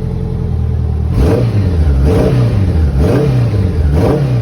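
1984 Honda Goldwing's flat-four engine running after its carburetors were cleaned and rebuilt, the throttle blipped about four times so the revs rise and fall roughly once a second.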